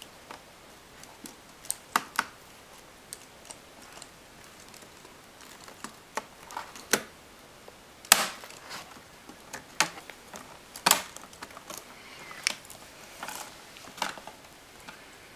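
Snap-on plastic trim bezel above a Toshiba Satellite L755D laptop's keyboard being pried up with a knife blade: scattered sharp clicks and snaps as its clips let go, the loudest about eight and eleven seconds in.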